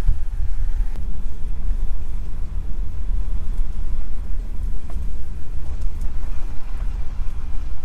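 Steady low rumble of a Jeep driving slowly over a dirt track, engine and tyre noise heard from inside the cab.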